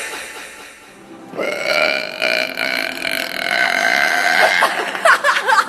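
A girl's long, drawn-out burp of about three seconds, starting about a second in, followed near the end by a few short, choppy sounds.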